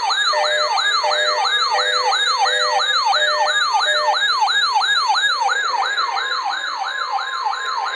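Electronic siren sounding in rapid falling sweeps, about three a second, over a pulsing stepped tone that stops about halfway through. A steady alarm tone, the weather radio's attention signal, comes in about six seconds in.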